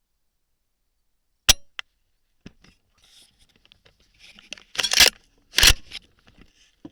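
A rifle's sharp dry click as the firing pin falls on a reloaded round that has no primer, so it does not fire. A smaller click follows, then rustling and two louder scraping clatters as the rifle is handled.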